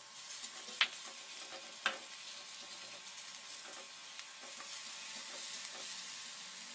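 Finely crushed garlic sizzling in hot oil in a frying pan as it is stirred with a silicone spatula, a steady hiss with two light taps about one and two seconds in.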